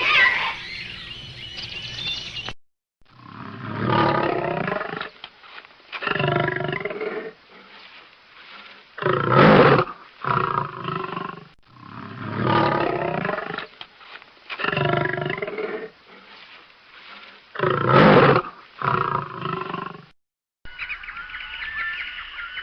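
Recorded big-cat roars and growls played back on a loop: the same run of four roars repeats, with one short, sharp, loudest roar in each cycle.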